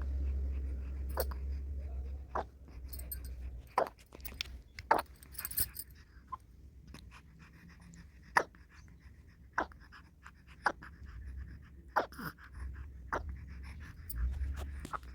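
A baby of about three months hiccuping: a string of short, sharp hiccups, about one every second, with a pause of a couple of seconds near the middle.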